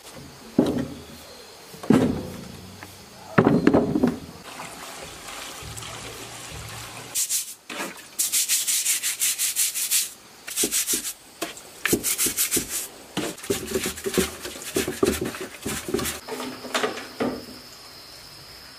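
Greasy metal engine cylinder block knocked down into a plastic crate a few times, then scrubbed with a stiff plastic brush in fast, scratchy strokes as it is cleaned. Near the end a steady high insect drone starts up.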